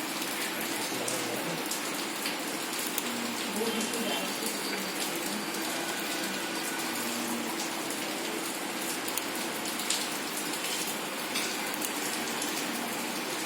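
Steady rain falling, with a dense hiss and many small drop impacts pattering on surfaces.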